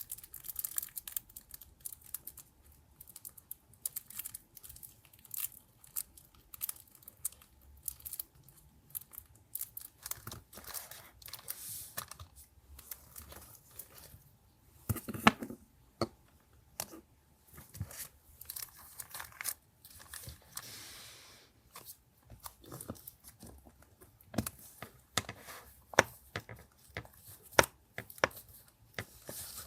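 Paper being handled close up: rustling, crinkling and tearing, broken by crisp little taps and snaps, the loudest about halfway through and again near the end.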